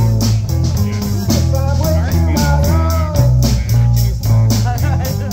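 Live rock band playing a blues-rock song on electric guitar, bass guitar and drum kit, with a steady bass line under the guitar and evenly spaced cymbal strokes.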